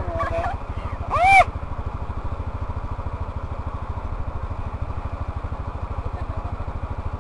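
Small moped engine running steadily with an even, rapid low pulse. Near the start a person gives two short high-pitched cries, the second, about a second in, the loudest sound.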